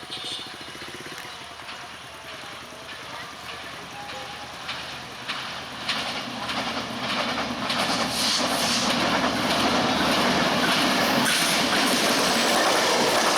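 Express passenger train hauled by an EMD diesel-electric locomotive approaching at speed and running past. The sound grows steadily louder until about eight seconds in, then stays loud, with wheels clicking over the rail joints.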